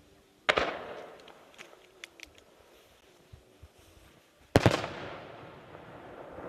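Fireworks shells bursting overhead: two loud bangs about four seconds apart, each rolling away in a long echo, with a few small crackles between them.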